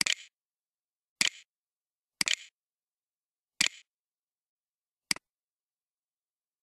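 Computer mouse clicking five times, spaced about one to one and a half seconds apart. Each is a sharp click, most with a quick press-and-release double.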